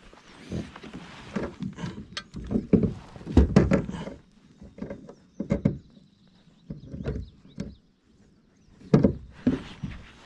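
Irregular knocks and thumps of gear and hands against a fishing kayak, coming in three bunches with short quiet pauses between them.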